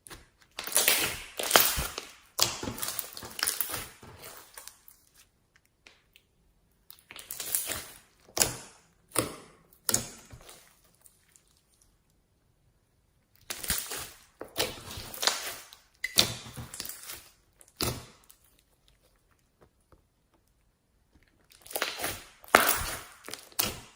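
Slime being squeezed and pressed by hand, giving dense crackling and popping in four bursts of a few seconds each, with short silent gaps between.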